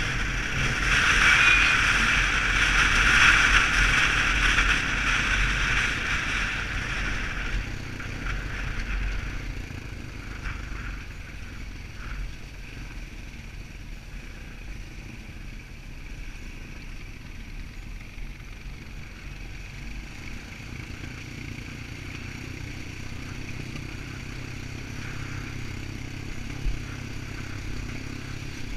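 Quad bike engine running steadily as it rides along a wet track, with a loud rushing noise over it for the first seven seconds or so that then fades, leaving mostly the low engine hum.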